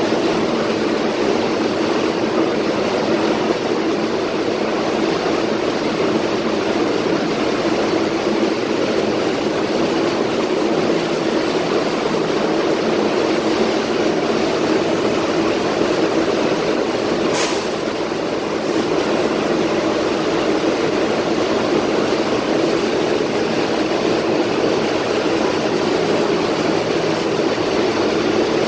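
Steady drone of an R188 subway train standing at the platform, its on-board equipment running. About seventeen seconds in there is a single short click.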